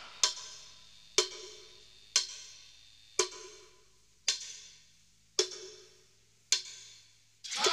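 Sparse percussive strikes, about one a second and slowing slightly, seven in all, each ringing briefly. A sweeping sound starts just before the end.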